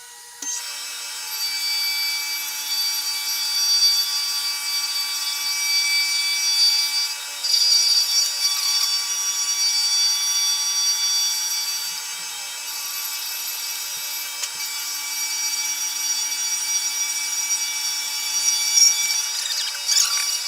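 Milling machine cutting into a block of wood: a steady high whine from the spindle over the rasping hiss of the cutter taking wood. It starts suddenly about half a second in.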